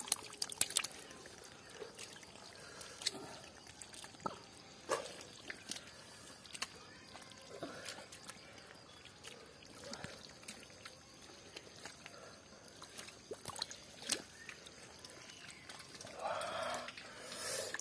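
Hands squelching and sloshing through thick mud water, picking out live shing catfish, with scattered small wet splashes and clicks.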